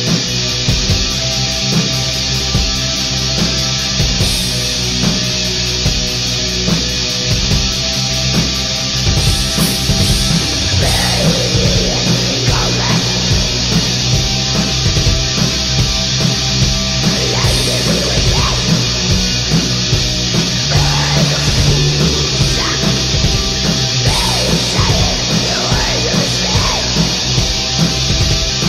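Black metal song: dense, loud distorted electric guitars with a full band, and a wavering line that bends in pitch entering above them about eleven seconds in.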